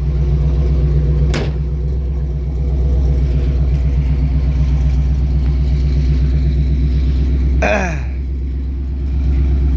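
1971 Chevy C10's 350 small-block V8 running steadily after a cold start, warmed up and now firing on all eight cylinders. A sharp click comes about a second and a half in, and a short falling squeak near the end.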